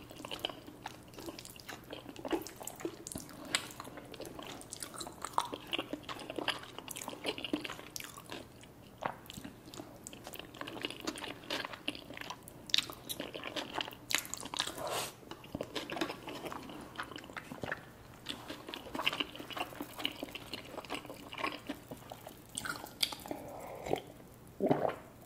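Close-up chewing and biting of creamy alfredo pasta and chicken wings: many short, irregular wet clicks and smacks of the mouth working the food.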